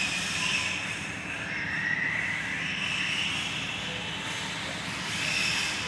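Electric RC off-road cars' motors whining as they drive around a dirt track. The pitch rises and falls as they speed up and slow down, with several cars overlapping.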